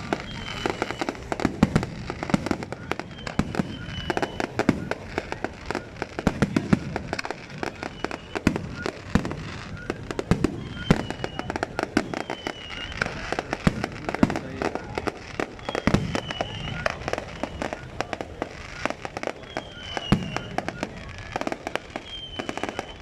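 Fireworks display: a continuous rapid crackle of small bursts, with heavier bangs every couple of seconds.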